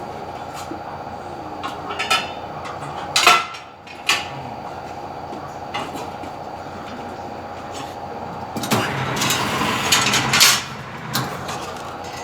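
Metal tools and wheel parts clanking and knocking during a tyre change, over a steady machine hum, with a louder rasping stretch of about two seconds near the end.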